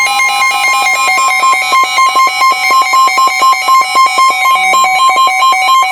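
NOAA Weather Radio's steady 1050 Hz warning alert tone, loud, with weather radio receivers sounding rapid pulsing alarm beeps over it. It marks a severe thunderstorm warning being issued.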